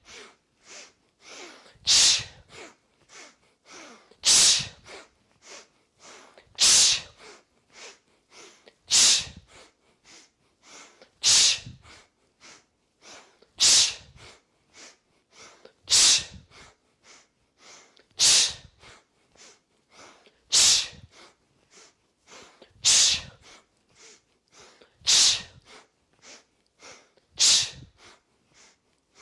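A person doing a rhythmic three-part yoga breath: three short sniffed inhales through the nose, then one forceful exhale through the mouth. The cycle repeats about every two and a quarter seconds, twelve times, and the mouth exhale is the loudest part.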